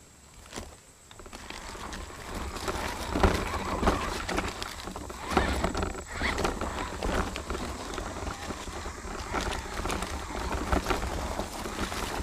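Radio-controlled rock crawler driving over loose stones and dry leaves: a dense, uneven run of clattering knocks and crunches as its tyres and chassis climb the rocks, heard from a camera mounted on the crawler's body. It is quiet for about the first second and a half, then gets busier and louder.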